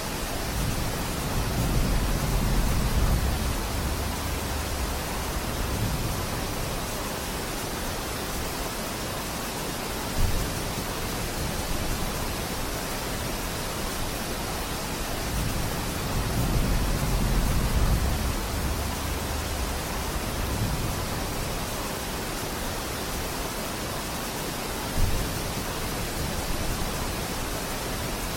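Steady rain falling, a dense even hiss, with a low rumble swelling up twice and two short low thumps.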